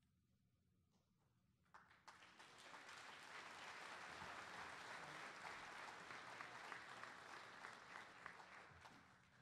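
Audience applauding in a hall: it starts about two seconds in, holds steady, and dies away near the end.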